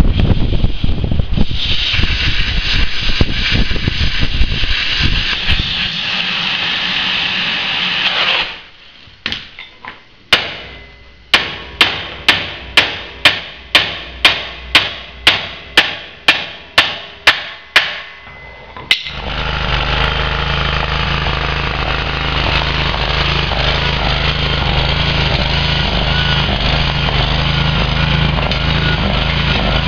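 MIG welder crackling steadily on the steel frame for the first eight seconds or so, then about fifteen sharp hammer blows on steel, two to three a second, each ringing briefly. From about two-thirds of the way through, an engine runs steadily.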